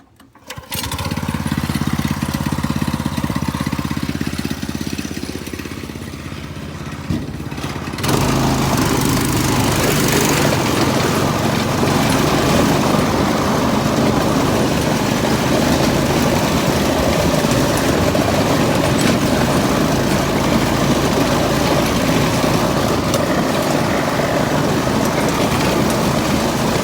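Yerf Dog go-kart's small engine starting about half a second in and running steadily. About eight seconds in it gets much louder as the kart is throttled up and driven on its new front tire, and it stays at that level.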